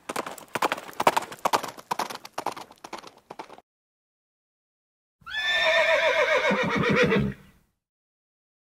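Horse hooves striking at a fast, even rhythm, stopping about three and a half seconds in. After a short pause a horse neighs once: a long whinny falling in pitch.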